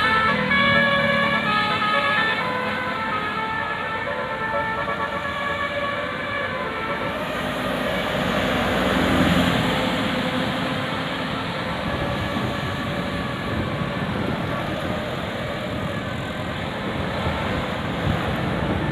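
Bus 'telolet basuri' multi-tone musical horn playing a melody in stepped notes, loudest in the first few seconds and fading. Under it runs steady bus engine and road noise, which swells around nine seconds as the bus goes by.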